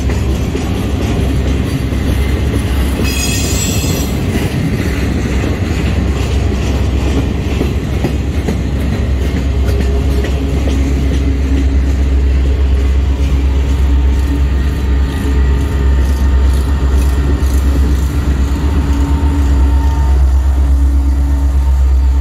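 Freight cars rolling past close by: a continuous heavy low rumble of steel wheels on rail with repeated clicking. A brief high-pitched wheel squeal comes about three seconds in. Near the end the diesel engine of a locomotive draws up and grows louder.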